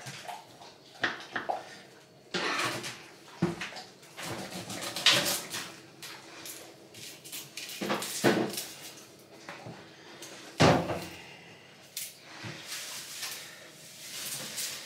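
Kitchen food-prep clatter: a knife tapping and scraping against a plastic tub and board while small onions are peeled and cut, with irregular knocks and short rustles, the loudest knock about ten and a half seconds in.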